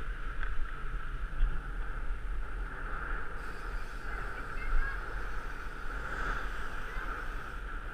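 Riding noise from a mountain bike on a tarmac road, picked up by a bike-mounted camera: wind rumbling on the microphone and a steady mid-pitched buzz.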